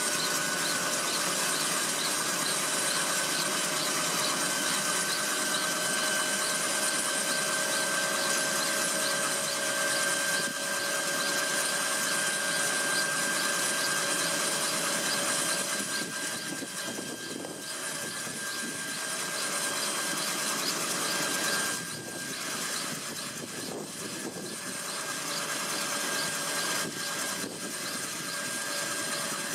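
Intermeshing-rotor helicopter running on the ground with its rotors turning: a steady high engine whine over the rush of the spinning blades, easing slightly for moments a little past the middle.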